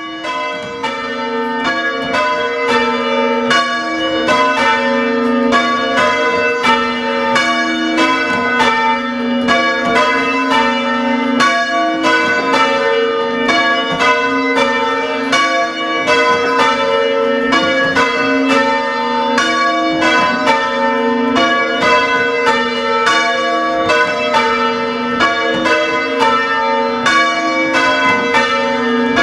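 Church bells rung full circle in change ringing: a steady, evenly spaced run of strokes with the bells' tones ringing on over one another, growing louder over the first few seconds.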